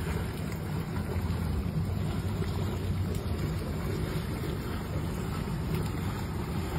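Heavy rain pouring steadily onto floodwater, a constant hiss, with a low rumble of wind buffeting the microphone.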